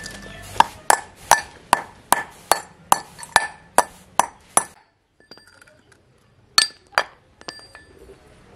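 Pestle pounding dark lumps in a small metal bowl: a quick run of about a dozen ringing clinks, about two and a half a second, crushing them to powder. A short pause follows, then two more strikes.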